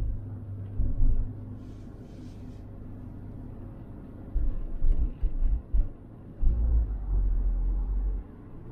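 Car driving along a city street: low road and engine rumble with deep rumbling surges that come and go in uneven bursts, and a brief hiss about two seconds in.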